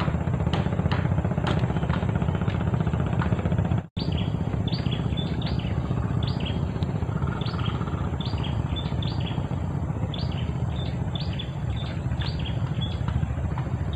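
Small birds chirping in quick, repeated short calls over a steady low rumble. In the first few seconds there is a regular ticking about twice a second, and a brief sudden dropout just before the chirping takes over.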